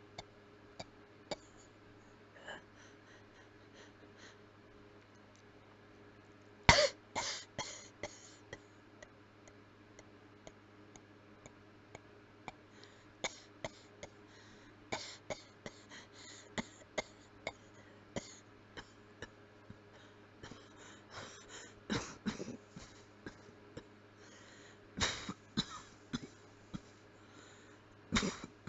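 A person coughing with the mouth closed, in several fits of short coughs. The loudest is a quick run about seven seconds in, with quieter stretches and small clicks between the fits.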